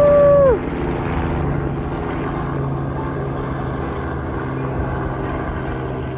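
A short clear tone at the very start, rising, held for about half a second, then falling away. It is followed by a steady mechanical drone with a low hum.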